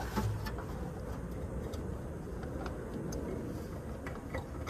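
Faint scattered clicks and taps from hands handling parts in a car's headlight area, over a steady low background rumble.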